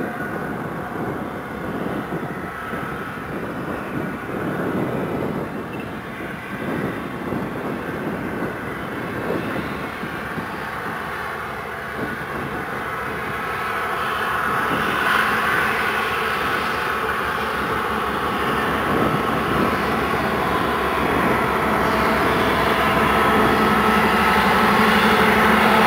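Union Pacific diesel locomotives hauling a coal train approach and pass, their engines running steadily, followed by the coal cars rolling by on the rails. The sound grows steadily louder through the second half.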